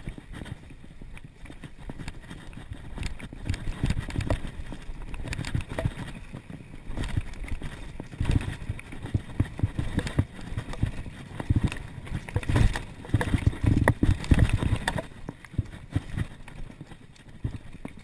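Mountain bike riding fast down a dirt singletrack: tyres rumbling over dirt and leaves, with the frame and components rattling and knocking over bumps. The rumble and clatter grow louder and busier about halfway through.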